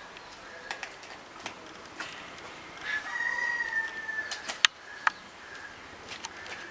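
A rooster crowing once in the background, a single held call of nearly two seconds in the middle. Around it come small clicks and two sharp clicks just after the crow, as the cube's box is handled and opened.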